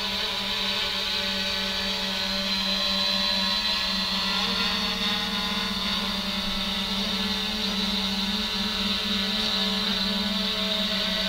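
3DR Iris+ quadcopter's four electric motors and propellers in flight, a steady multi-tone hum with a high hiss above it.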